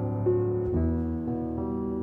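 Piano playing soft held notes in a pause between sung lines of a slow song, with new notes entering twice in the first second.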